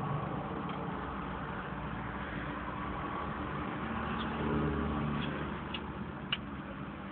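Steady low car rumble heard inside a parked car's cabin, swelling briefly about four seconds in, with a few faint sharp clicks near the end.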